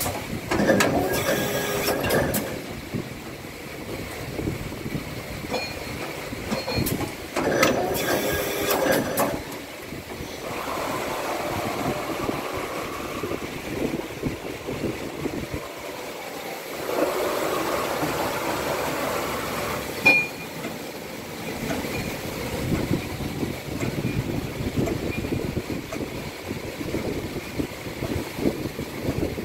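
Wintec CNC vertical machining center running: whining and rumbling machine movements that come and go in stretches of a few seconds, with one sharp click about twenty seconds in.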